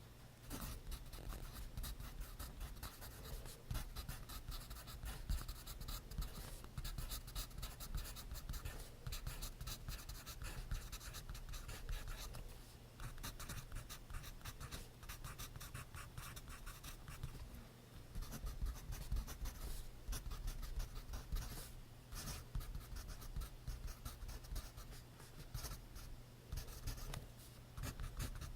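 Pencil writing on notebook paper: quick, continuous scratchy strokes with short breaks every few seconds.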